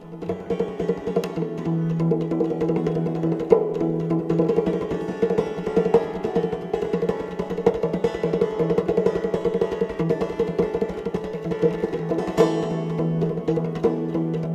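Sarangi played without the bow, its strings plucked and struck fast with the right hand in the manner of an Afghan rabab. A quick, even run of plucked strokes rings over a steady drone.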